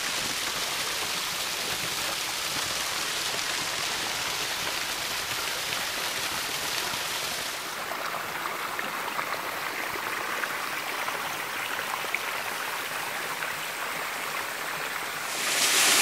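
Water running steadily: a small waterfall splashing down a rock face, then a shallow stream rippling over rocks, which starts about halfway through. The water grows louder shortly before the end.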